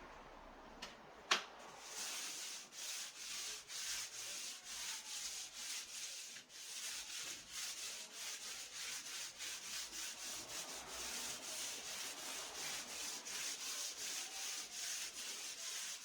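Sandpaper on a hand-held sanding adapter rubbing back and forth on wood in quick, even strokes, several a second. A single sharp click comes about a second in, before the strokes start.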